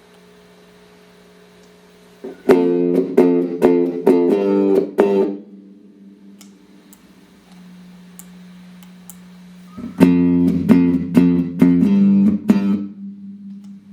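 Clean electric guitar through a Boss GE-7 equalizer pedal and Roland JC-120 amps. It plays two short phrases of quickly picked chords a few seconds apart, with a single low note left ringing quietly before, between and after them.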